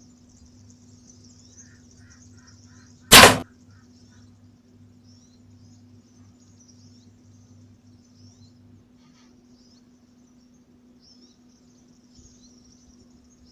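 A bow shot: one sharp crack of the string and arrow about three seconds in, just after a quick run of short pitched notes, with small birds chirping faintly throughout.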